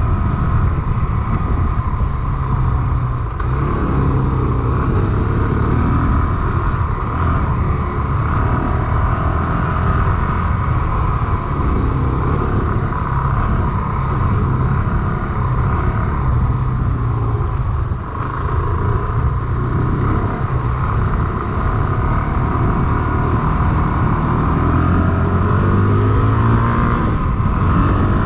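Honda CRF450RL's 450cc single-cylinder four-stroke engine running as the bike is ridden, the engine note rising and falling with the throttle, easing off briefly partway through and climbing again near the end.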